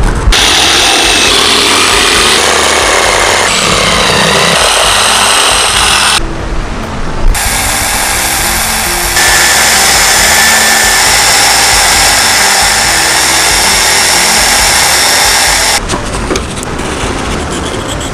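A power tool grinds a wooden handle block in two long spells, with a short break about six seconds in. In the second spell it is a bench belt sander grinding the edge of the wood, steady and loud, with a high whine. Background music plays under it.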